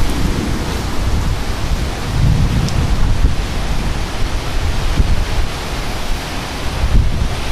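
Strong, gusty thunderstorm wind, gusts of about 50 mph, blowing across the microphone with a heavy, uneven low buffeting.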